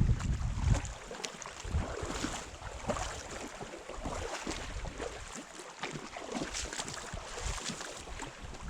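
Stream water rushing over rocks, an irregular splashing hiss, with wind buffeting the microphone for about the first second.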